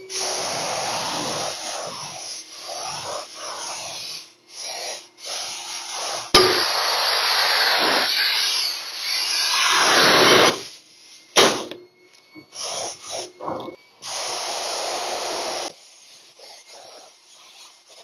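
HVLP turbine spray gun (Titan Capspray 95) hissing in bursts as its trigger is pulled and released, spraying wood stain onto a beam: three long bursts of a few seconds each, with short spurts between them.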